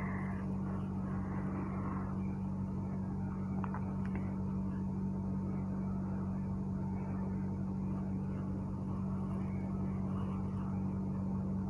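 Chicken and potatoes sizzling gently in masala in a wok, over a steady low hum.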